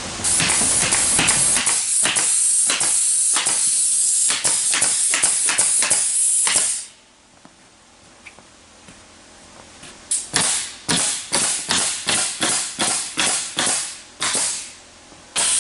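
Pneumatic stapler firing staples into OSB roof decking: a rapid run of sharp shots over a loud steady air hiss, a pause, then about a dozen more shots at about three a second.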